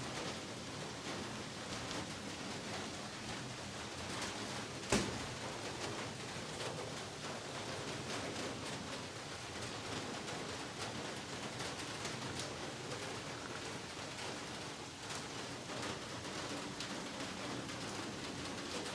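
Heavy rain falling steadily, with many small drop taps on surfaces, and one louder sharp tap about five seconds in.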